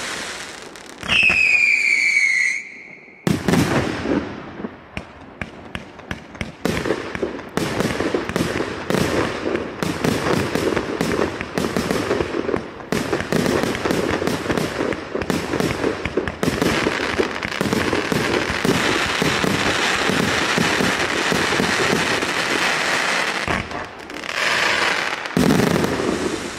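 A 258-shot fireworks cake firing. About a second in, a whistle falls in pitch. Then comes a long, dense string of rapid shots and crackling bursts, with a brief break near the end.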